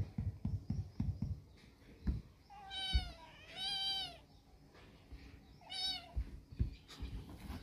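A kitten meows three times: two half-second meows close together a few seconds in, and a shorter one near the end. Before them a hand pats quickly on a woven tape cot seat in dull knocks, and a few more knocks come near the end.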